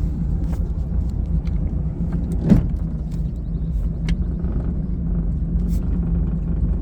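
Older four-cylinder boat engine idling steadily, warmed up, with one brief knock about two and a half seconds in.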